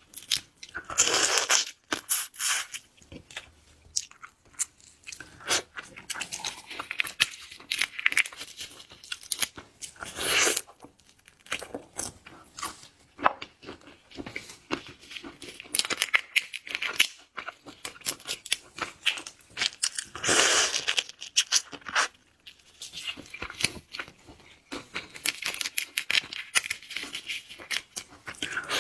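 Close-miked eating of giant river prawns: shells cracking and tearing as they are pulled apart, with crackling and chewing in between. There are louder crunching bursts about a second in, around ten seconds in and around twenty seconds in.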